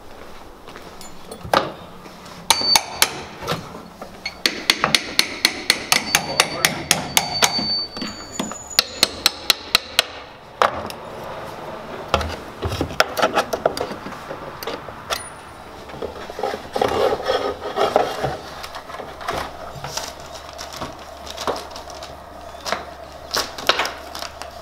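Hammer strikes and knocks on a pry bar and wooden door trim as an old exterior door frame is pried loose. There is a quick run of sharp taps, about three a second, through the first half, then scattered knocks.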